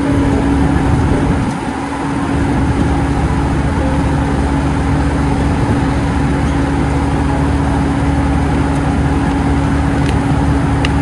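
Asphalt paver's diesel engine and machinery running steadily, a continuous low rumble with a steady hum over it.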